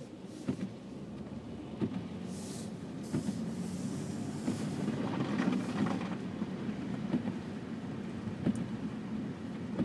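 Car in motion on a snow-covered road, heard from inside the cabin: a steady low tyre and road rumble with a few light knocks.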